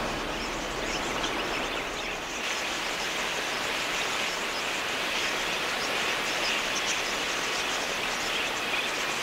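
Dense, continuous chatter of a large flock of wild budgerigars, many quick high chirps blending into a steady wash.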